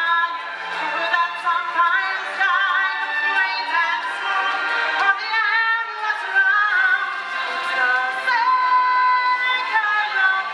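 A woman singing a sustained solo melody with wide vibrato, with other voices singing underneath.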